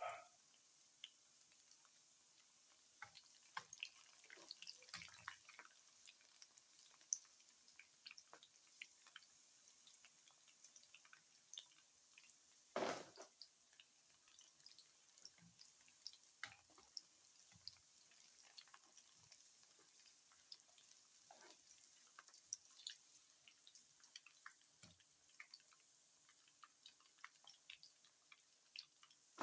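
Tufo frying in hot oil: faint, scattered pops and crackles at an irregular pace, with one louder knock about halfway through.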